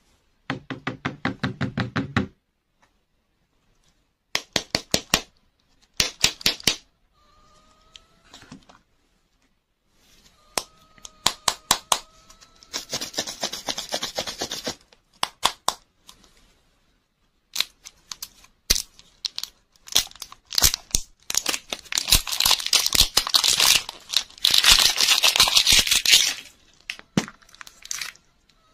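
Plastic wrapping crinkling and tearing in bursts, with quick runs of sharp clicks and snaps as the plastic shells of toy-and-lollipop balls are handled and pried open. The longest, densest stretch of crinkling and tearing comes near the end.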